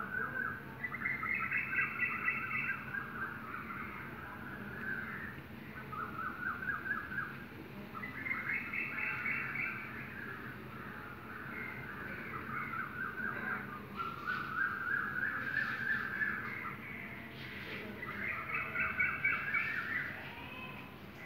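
Bird calling in repeated bouts of rapid chattering notes, a few seconds apart.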